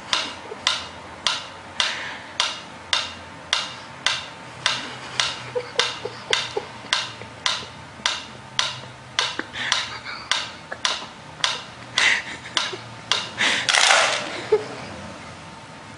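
Wind-up pyramid metronome ticking steadily, a little under two ticks a second. Near the end a cat knocks it over: a brief loud scuffling clatter, one last knock, and the ticking stops.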